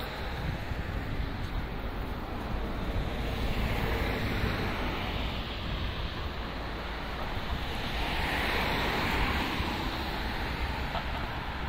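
Street traffic: a steady rush of tyre and engine noise, swelling as vehicles pass about four and eight seconds in.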